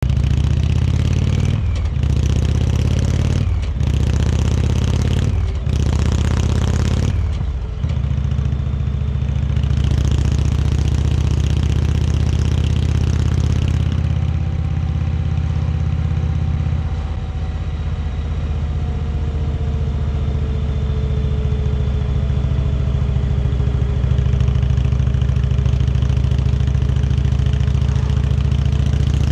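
Indian Chieftain Dark Horse's air-cooled Thunder Stroke V-twin running under way. In the first eight seconds the engine note breaks off briefly four times, about two seconds apart, as it shifts up through the gears. After that it holds a steady cruising note.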